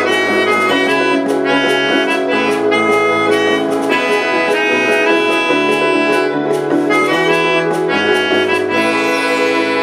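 Instrumental ensemble music: a melodica plays the melody over upright piano, keyboard strings and drum-pad percussion struck with sticks in a steady beat.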